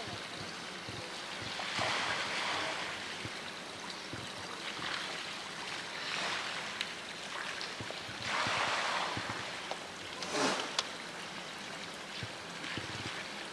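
Steady rush of running water, swelling louder for a second or so a few times.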